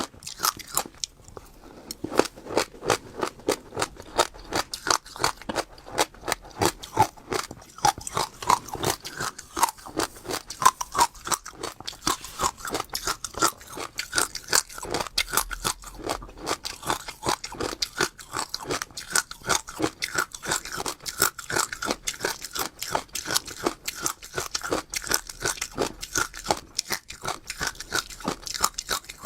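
Passion fruit seeds being chewed close to the microphone: a steady, rapid run of crisp crunches, several a second.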